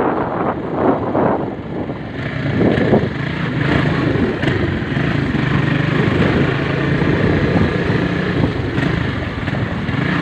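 Honda Sonic motorcycle engine running under way, its note settling into a steady drone about two seconds in. Wind buffets the microphone, most in the first couple of seconds.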